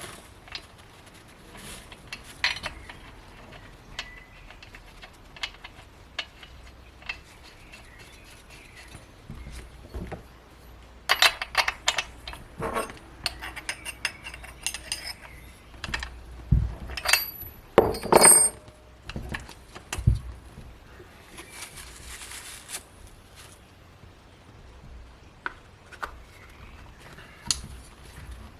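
Metal parts and hand tools clinking, knocking and clattering, with a few ringing metallic strikes, as a chainsaw is handled for cleaning and maintenance.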